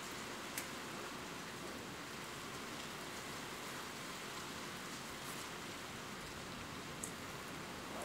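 Steady rain falling in a forest, an even hiss, with three sharp drop ticks scattered through it.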